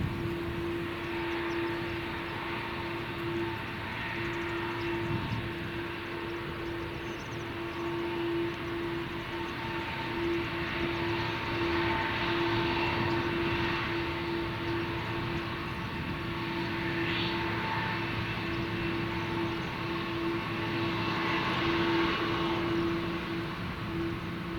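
Jet airliner engines running with a steady, unchanging whine over a rushing noise, swelling a little now and then.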